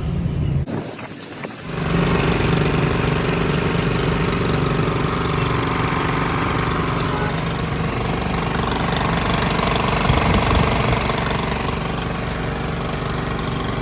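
An engine, freshly overhauled, comes in loudly about two seconds in and then runs steadily with a fast, even pulsing beat.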